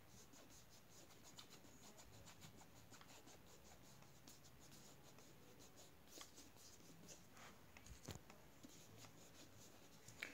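Faint scratching and rubbing of a hand on a plastic Hatchimal toy egg, with a few light knocks about six and eight seconds in.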